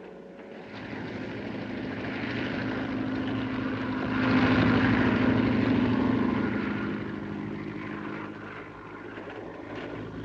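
Propeller airplane flying overhead: its engine grows louder, is loudest about halfway through, then fades away.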